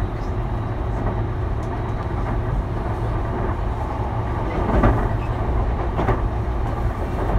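Sotetsu 12000 series electric commuter train heard from inside a passenger car while running: a steady low rumble of wheels on the rails, with a few short knocks over rail joints, the loudest about five seconds in.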